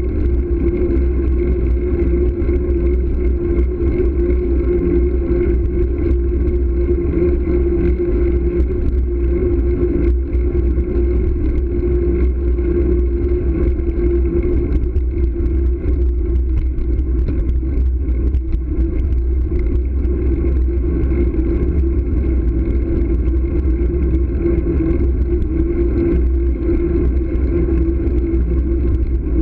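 Steady wind rumble on the microphone and tyre drone from a bicycle riding along a paved street, with a steady hum over it that weakens for a while around the middle.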